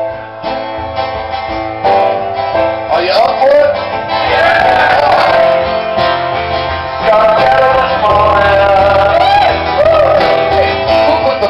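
Live band playing amplified music on guitars and keyboard. About three seconds in, a lead line that bends and wavers in pitch comes in over the chords.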